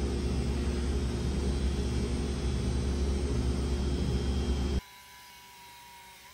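Steady machine-like noise: a strong low hum under an even hiss, cutting off abruptly about five seconds in, leaving quiet room tone with a faint high steady tone.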